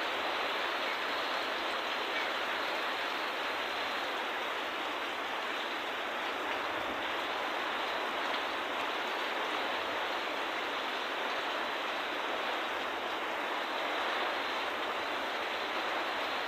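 Heavy storm rain with strong wind: a steady, unbroken rushing noise.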